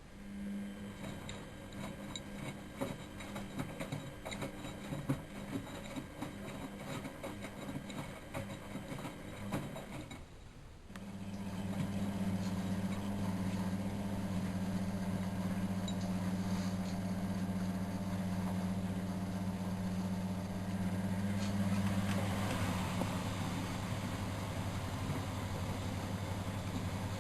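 Miele Novotronic W914 washing machine running a boil wash: first a rattling, clicking wash action, then about eleven seconds in a steady, louder motor hum starts and carries on, with a rushing, gurgling noise joining it later.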